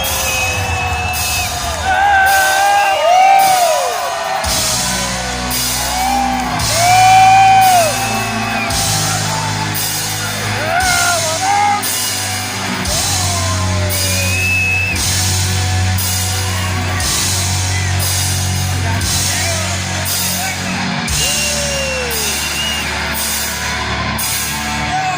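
Loud heavy rock concert intro. Bass and drums come in about four seconds in with regular cymbal hits, while the audience yells and whoops over the music.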